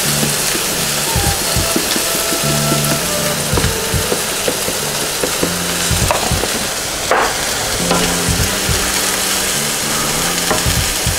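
Sauerkraut sizzling as it fries in a hot pot, stirred near the end, over background music with a low bass line.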